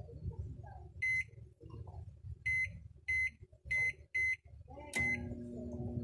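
GE digital microwave oven's keypad beeping six times as its buttons are pressed. About five seconds in, the oven switches on and a steady electrical hum sets in, the sign that the high-voltage circuit has started running.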